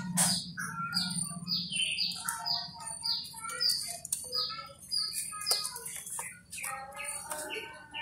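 Eurasian tree sparrows chirping: a steady series of short, high chirps, each sliding down in pitch, about one or two a second, with a few sharp clicks among them.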